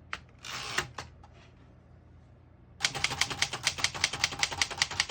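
Keys of a 1937 Remington Junior manual portable typewriter being typed quickly and evenly, about eight sharp strikes a second, starting a little under three seconds in after a short rasp and a pause. The keys strike cleanly, with none skipping or sticking.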